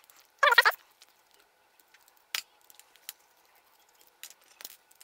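A precision screwdriver working out the tiny screws of a Bambu Lab A1 hotend's heater cover. There is a short rasping scrape about half a second in, then a few light, scattered clicks of the bit and screws.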